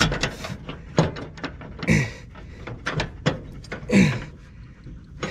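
Metal knocks and clanks from a lawn tractor's mower deck being lifted and worked into place by hand, with several short strained grunts of effort.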